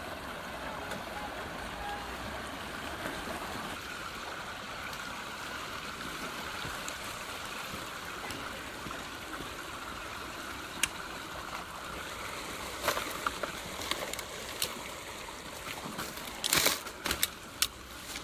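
Sand Creek's shallow water running over the crossing, a steady rushing and trickling. In the last few seconds several sharp knocks and clicks come over it.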